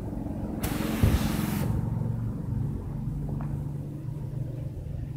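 A steady low motor hum, with a loud hiss lasting about a second starting just under a second in, and a low thump in the middle of the hiss.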